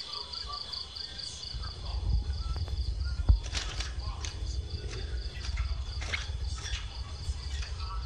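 A cricket chirping in a quick, evenly pulsed high trill that fades out about three seconds in, over a low rumble. Scattered short clicks and knocks follow.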